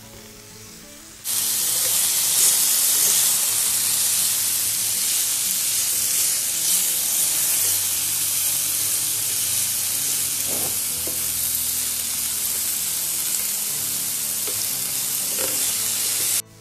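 Thin strips of marinated beef sizzling loudly in a hot ridged grill pan, turned with tongs. The sizzle cuts in about a second in and stops abruptly just before the end.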